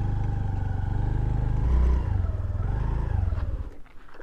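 Scooter engine running as the scooter slows and pulls over, its note falling. The engine then cuts off about three and a half seconds in.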